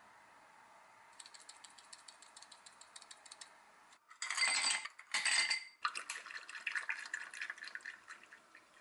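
Two scoops of ice cubes dropped into a glass, each a loud rattle lasting under a second, about four and five seconds in, after some light clicking. Then black tea poured from a bottle over the ice, with the ice crackling and clinking.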